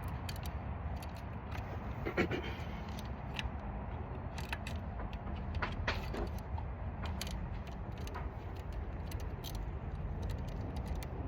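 Metal saw chain clicking and clinking in irregular light ticks as it is worked by hand onto a chainsaw's guide bar and sprocket, over a steady low rumble in the background.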